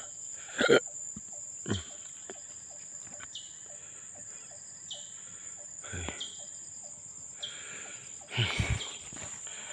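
Forest insects, crickets, buzzing in one steady high-pitched tone, with a few short knocks and rustles of handling or movement breaking in, the loudest about eight and a half seconds in.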